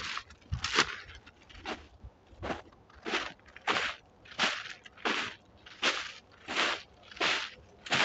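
Footsteps crunching through snow with a frozen crust, an even walking pace of about one and a half steps a second; the iced-over top layer cracks under each step.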